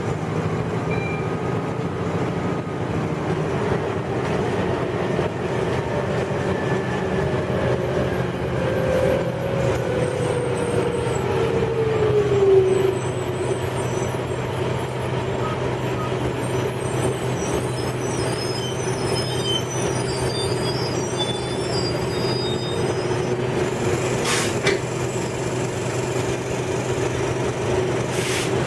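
Cabin noise of a 1998 NovaBus RTS-06 diesel transit bus: a steady engine and road drone, with a whine that glides down in pitch about a third of the way in. Two sharp knocks come near the end, a few seconds apart.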